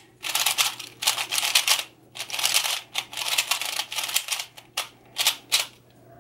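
Ghost Hand Phoenix 3x3 speed cube being turned fast on its first turns out of the box: its plastic layers click and clatter in several rapid bursts, with short pauses between them. The cube turns very loose.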